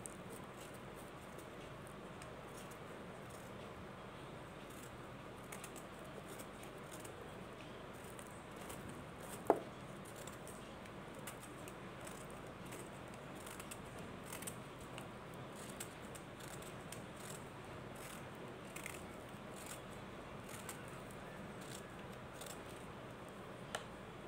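Scissor blades scraping and snipping into a hand-held mothball cake: faint scattered scratches and crackles over a steady hiss, with one sharp click about nine and a half seconds in.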